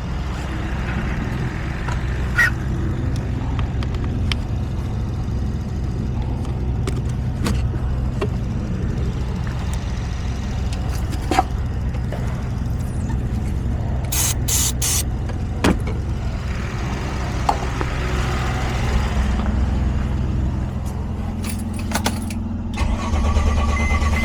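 Mercedes Sprinter's 3.0 L V6 diesel (OM642) idling steadily, with a few sharp clicks and a brief hiss about two-thirds of the way through.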